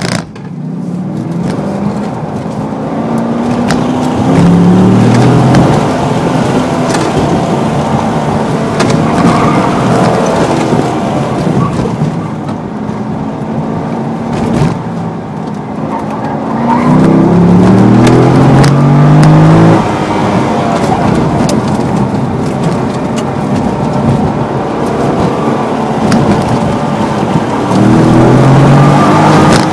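C6 Corvette's V8 engine pulling hard and easing off through an autocross course. The revs climb steeply three times, about four seconds in, past the middle, and near the end, then drop back or hold between corners.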